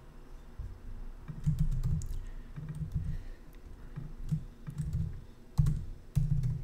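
Typing on a laptop keyboard in irregular bursts of keystrokes, with two sharper, louder key hits near the end.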